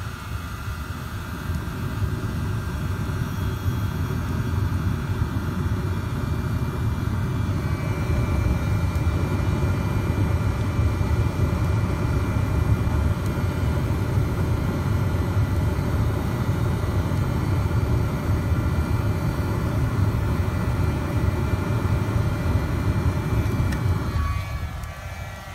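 Bison Airlighter 420 fire starter locked on, its butane torch and built-in air blower driving a jet of flame and air into a burning log fire. It makes a loud, steady rushing roar with a faint whine over it, and cuts off shortly before the end.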